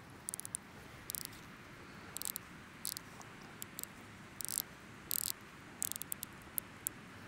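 Wood fire crackling around and on a cast-iron Dutch oven: irregular short, sharp snaps and pops, over a faint steady background hiss.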